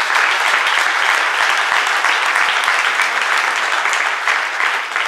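Audience applauding: many hands clapping steadily, beginning to thin out near the end.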